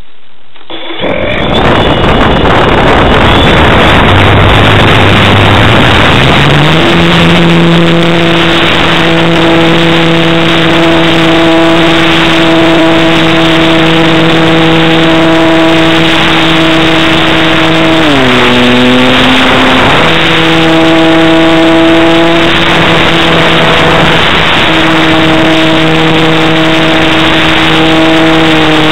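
Motor and propeller of a radio-controlled model Cessna running under a loud rushing noise, its steady tone rising in pitch about six seconds in as it throttles up. The pitch dips sharply for about two seconds near the middle, then comes back up and holds.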